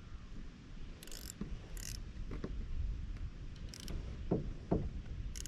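Fishing reel being handled and cranked, with a few short bursts of ratchety clicking and soft knocks. The reel has been turning backward as well as forward because its anti-reverse switch was off.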